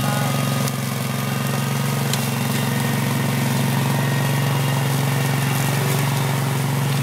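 Kawasaki engine of a Spider ILDO2 remote-control slope mower running steadily at constant speed.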